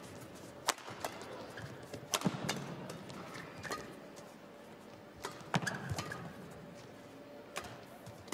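Badminton rally: rackets striking a feathered shuttlecock, about eight sharp cracks at uneven intervals, with shoe squeaks and footwork on the court floor between hits.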